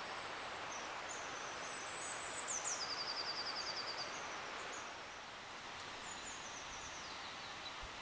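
A small songbird singing over a steady background hiss: high thin notes, a falling sweep and then a rapid even trill about two to four seconds in, with more short falling phrases near the end.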